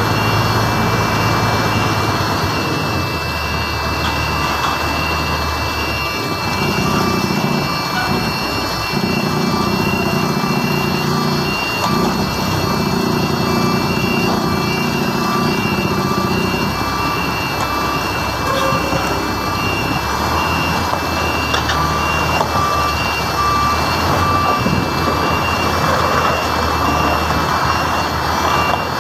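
Truck engine running as the rig manoeuvres with a flatbed trailer, working harder for about ten seconds in the middle, with a reversing alarm beeping about once a second.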